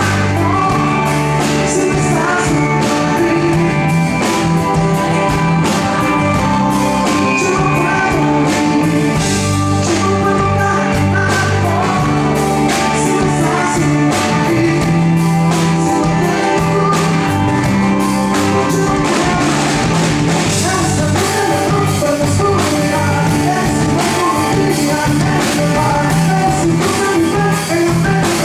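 A male vocalist singing live over a band playing pop-rock with electric guitar.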